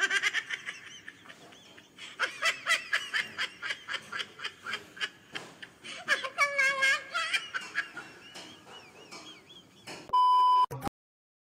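Laughter in quick, repeated bursts, then a short steady beep about ten seconds in.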